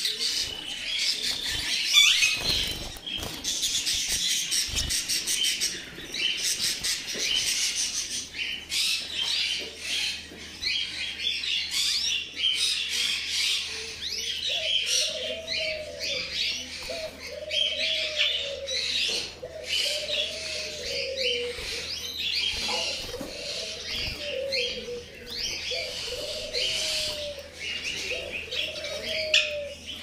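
Many caged pet birds chirping and twittering at once, a dense chorus of short high calls. From about halfway, a lower arched call repeats roughly once a second, cooing in character.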